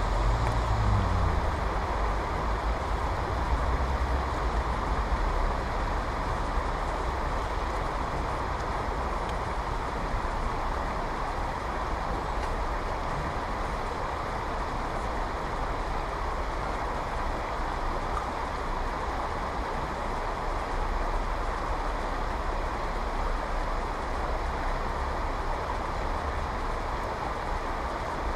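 Steady rush of river water running over a shallow, stony riffle, with a low, unsteady rumble underneath.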